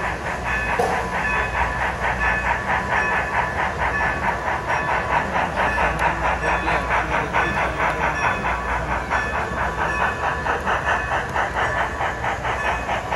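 Sound-equipped HO scale model of Strasburg No. 90 steam locomotive running, its sound decoder giving a rapid, even steam chuff through the model's small speaker. The chuffing stops suddenly right at the end.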